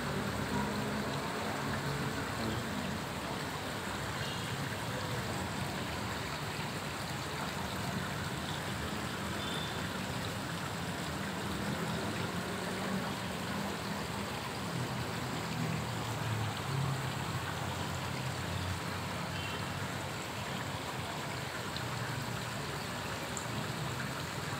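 Water splashing steadily into a koi pond from an inlet, a continuous rush of falling water.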